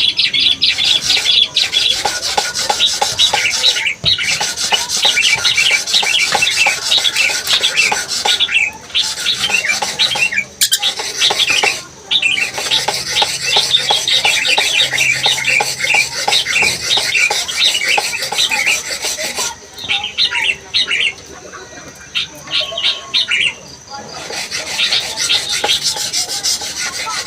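Lorikeet chattering: long runs of rapid, rasping, high-pitched chirps, broken by a few short pauses.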